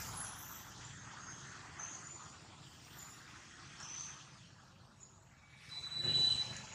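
Faint outdoor ambience with scattered short high chirps. Near the end comes a brief louder burst: a short high squeak over a rustle as two baby macaques wrestle.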